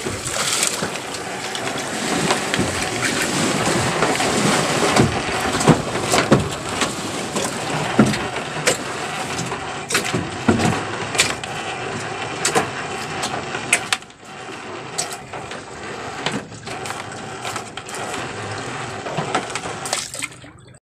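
Water splashing beside a small wooden outrigger boat, with a dense run of knocks and rustles as a rope is worked over the side.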